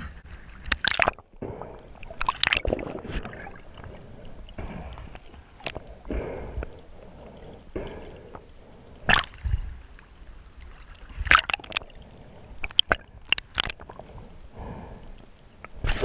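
Water sloshing and gurgling around a GoPro 3 in its waterproof housing as a breath-hold diver goes down, muffled, with sharp clicks and knocks at uneven intervals.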